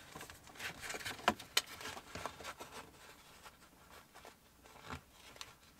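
Plastic gear-selector trim plate and leather shift boot being handled and worked down over the shifter: soft rustling with a scatter of small clicks and taps, most of them in the first two seconds.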